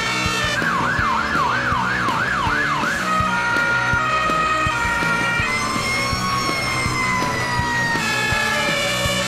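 Emergency-vehicle siren over background music. A fast yelp sweeps up and down about three to four times a second for roughly two and a half seconds, and later a siren tone slides slowly downward for a few seconds.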